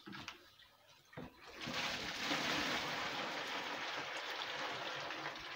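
Water poured from a plastic bucket into a plastic basin: a steady splashing gush that starts about a second and a half in and lasts about four seconds.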